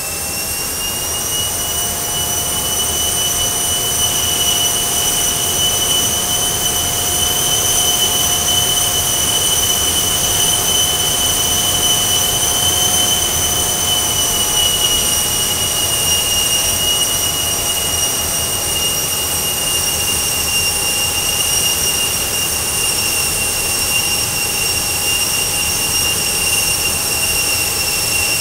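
Price Induction DGEN 380 turbofan running on a test bench: a steady high turbine whine over a rush of air. It rises in pitch at the start and grows louder over the first few seconds, then holds. It eases slightly lower about halfway through, as the thrust lever is set to cruise.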